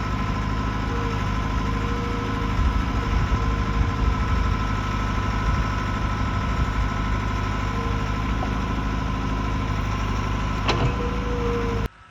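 An engine idling steadily, with a steady whine over it; it cuts off suddenly near the end.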